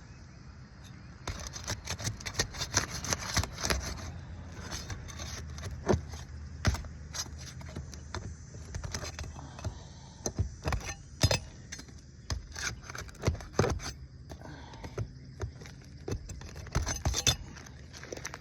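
Irregular sharp clicks, taps and scrapes of hand work on asphalt shingles as they are pried up and their sealant strips broken, for a repairability test on hail-damaged shingles, over a steady low hum.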